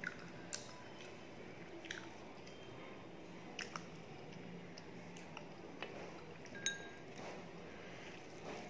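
Close-up eating sounds: rice and mutton curry mixed by hand and chewed, with soft wet squishing and scattered sharp mouth clicks. A brief ringing clink about two-thirds of the way in.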